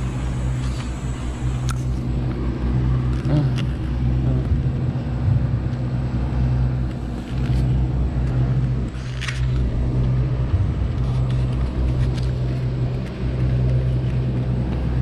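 A steady low engine hum, like a vehicle idling, with a few light clicks and scuffs.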